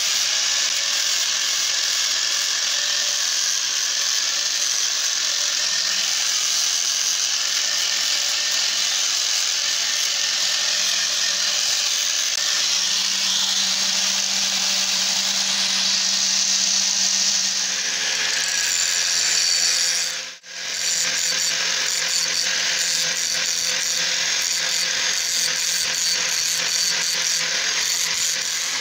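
Electric angle grinder running with steel held against its spinning disc, a steady grinding hiss over the motor's hum. The sound cuts out for a moment about twenty seconds in, then carries on.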